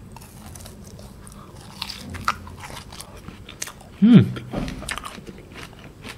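A person biting and chewing a KitKat Gold ice cream with a crunchy, wafer-like outer layer: scattered crisp crunches, with a short hummed "mm" about four seconds in, the loudest sound.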